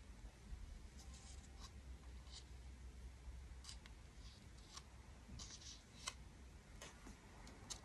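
Near silence over a low steady hum, broken by a dozen or so faint, scattered small ticks and brief rustles, like light handling of objects close to the microphone.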